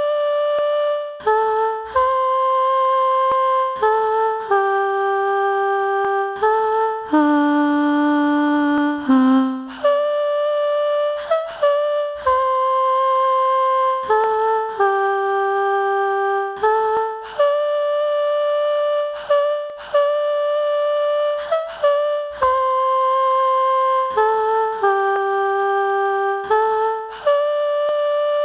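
Background music: a slow, wordless melody of long held notes, moving step by step in a repeating phrase.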